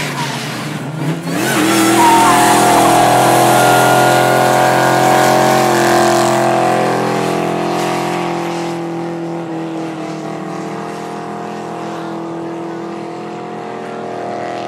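Drift car doing a burnout: the engine revs up about a second in and is then held at high revs with the rear tyres spinning. It is loudest for several seconds, then slowly fades as the car moves off down the straight.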